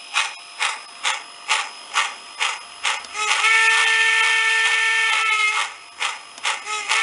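Steam locomotive sound sample from a model locomotive, played through a small cube speaker with its plate cone facing out in a longer enclosure. Exhaust chuffs come at about two a second. About three seconds in, a steady chord-like whistle blows for some two and a half seconds, then a few more chuffs, and the whistle starts again near the end.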